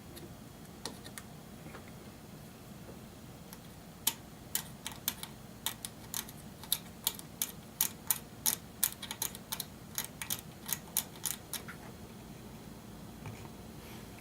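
X-Acto knife scratching and cutting through the copper power traces on a circuit board, a run of sharp scratchy clicks about three a second starting about four seconds in and stopping a few seconds before the end. The cuts sever the shorted plus and minus 15 volt rails that were burning the board.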